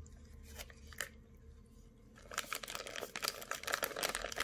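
Thin clear plastic water pouch crinkling in the hands as it is handled and opened: a few faint crackles at first, then a dense run of crackling from about halfway in.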